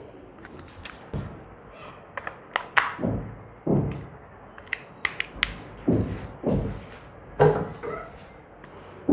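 Handling sounds: an irregular string of dull thumps and sharp clicks as a mains plug goes into a power strip and a Bosch GBH 220 rotary hammer is picked up and positioned. The drill's motor is not running.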